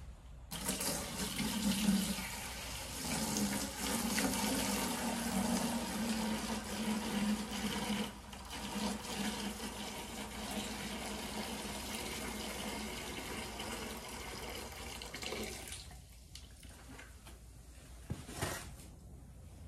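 Liquid ballast rushing out of a tractor tire's valve, pushed by the air pressure in the tire, and pouring through a hose into a plastic bucket. It runs steadily for about fifteen seconds and then stops, leaving a few faint clicks.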